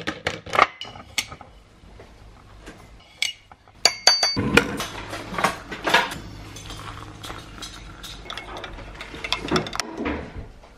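Instant coffee being made in white ceramic mugs: clinks of crockery and a spoon, with a short ringing clink just before four seconds in, then water poured into the mugs over the following several seconds, with more small clinks.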